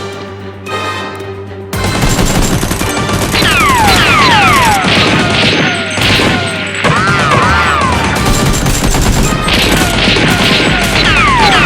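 Dubbed battle sound effects: dense rapid gunfire and crashes, laced with repeated falling whistles, taking over from background music about two seconds in.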